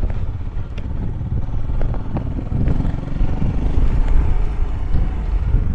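Royal Enfield Himalayan's single-cylinder engine running while riding, with a heavy low rumble from engine and road and wind on the microphone; the engine note rises and falls with the throttle.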